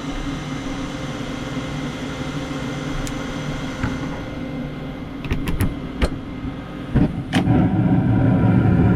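Carrier gas furnace draft inducer motor running with a steady hum after being spun free by hand; it had been seized, the cause of the furnace not firing. A few clicks come about five to six seconds in, and a thump about seven seconds in, after which a louder, deeper hum takes over.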